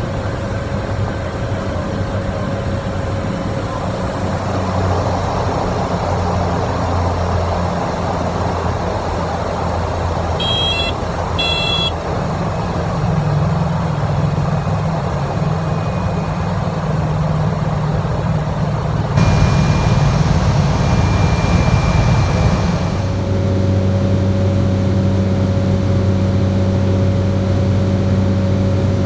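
Cessna 208 Caravan's PT6A turboprop engine and propeller droning steadily in the cockpit, its tone changing a few times. Two short high electronic beeps come about eleven seconds in.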